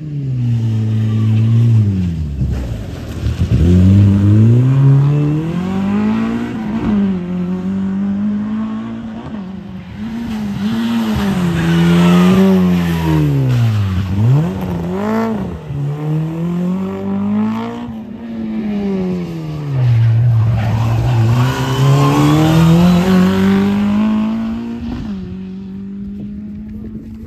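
Rally car engine revving hard, its pitch climbing through the gears and dropping sharply on lifts and braking, over and over as the car is driven flat out past the roadside in several takes.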